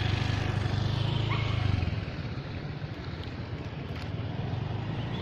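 A motor vehicle passing on the road close by, its engine drone fading away about two seconds in and leaving steady outdoor background noise.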